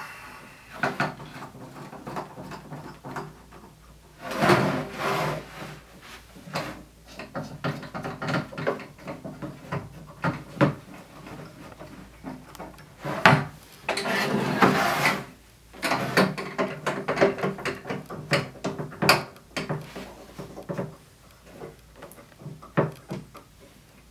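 Hands turning the stretch knobs and handling a watercolour paper stretcher frame: irregular clicks, knocks and short rubbing scrapes of the frame and its hardware against the table as tension is put on the wet paper to pull out its wrinkles.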